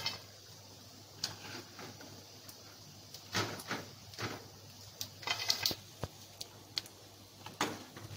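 Scattered light clicks and rustles as a metal slotted spoon scoops fried macaroni from the frying pan and drops the pieces onto a paper napkin.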